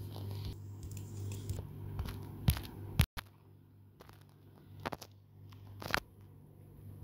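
Handling noise as hands move a jointed Barbie doll's legs against a hard floor: a few sharp clicks and knocks over a low steady hum.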